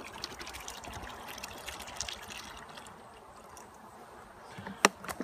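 Liquid poured from a plastic jug into a hive-top feeder tray, trickling and splashing, tapering off after about three seconds. A sharp knock near the end.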